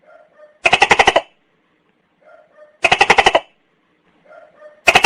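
Tokay gecko calling: three loud, quick-pulsed 'to-kay' calls about two seconds apart, each preceded by a softer, lower croak.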